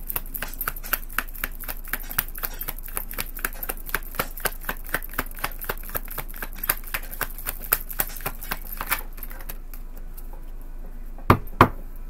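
Tarot cards being shuffled by hand: a quick run of card slaps and clicks, several a second, which stops about nine seconds in. Two sharp knocks follow near the end.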